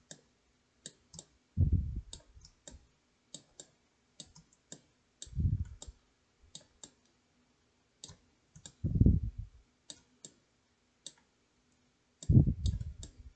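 Computer mouse and keyboard clicks, irregular, a few per second. Four louder, low, muffled bumps come at even spacing, about three and a half seconds apart.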